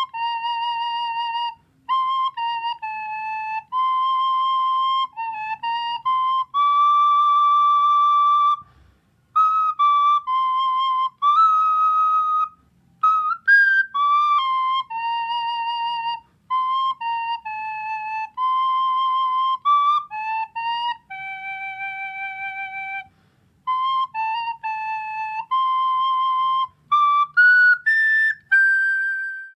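A solo flute plays a slow melody. Its held notes waver in pitch, it pauses briefly a few times, and near the end it climbs quickly to a high note.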